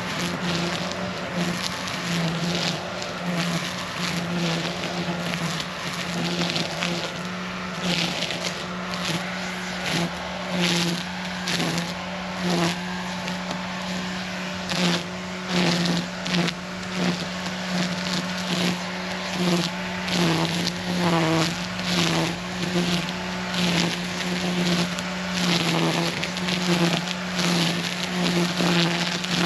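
Echo eForce 56-volt cordless power tool's electric motor running with a steady hum that sags briefly under load. It cuts in repeated bursts, about one a second in the second half, with woody crunching as it bites.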